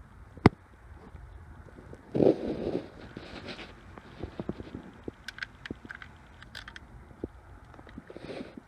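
Handling noise from working on a portable power pack: a sharp click about half a second in, a rustling scrape around two seconds in, then a string of small clicks and taps.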